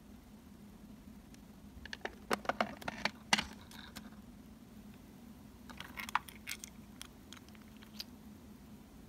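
Small hard plastic clicks and taps as the doors of a miniature toy refrigerator are opened, the loudest snap about three seconds in. Then lighter clicks as a tiny plastic food container is handled and lifted out.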